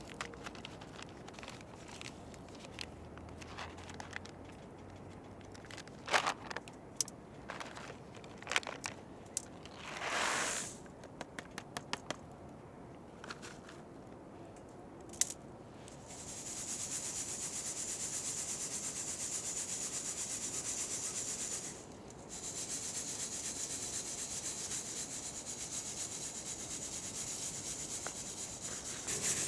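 Scattered light clicks and knocks. From about halfway a steady dry scraping, rubbing sound starts and runs on, breaking off briefly once.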